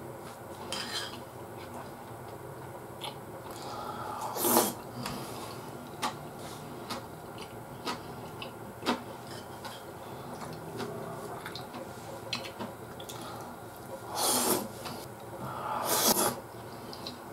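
Metal spoon scraping and clinking against a ceramic plate of curry rice, with sharp clicks every few seconds. Three louder noisy eating sounds at the mouth, one a few seconds in and two near the end, as spoonfuls are taken.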